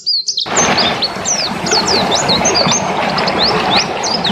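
Pleci dakun (white-eye) singing a fast, continuous run of short, sharp high chirps and whistled notes, each quickly rising or falling, over a constant noisy background. The sound cuts out for about half a second at the start, then the song resumes.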